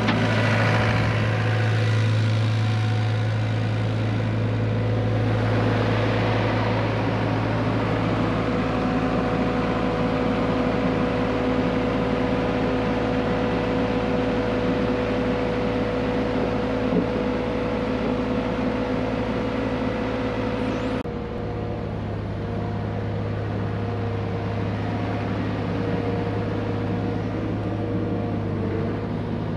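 Hyundai HX85A excavator's diesel engine running at a steady speed with a constant hum. The sound changes abruptly and drops a little in level about two-thirds of the way through.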